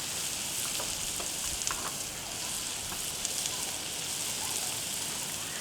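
Butter sizzling on a hot Blackstone flat-top griddle: a steady frying hiss with a few faint crackles.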